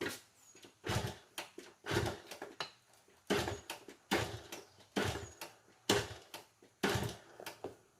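1979 Honda CT90's single-cylinder four-stroke engine being kicked over again and again, about one kick a second, turning over without catching: the fuel tap was left off after the carburetor went back on.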